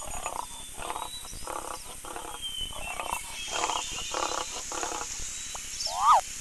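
A lion grunting in an evenly paced series, about ten short grunts at roughly two a second, over faint birdsong. A sharp chirp sounds near the end.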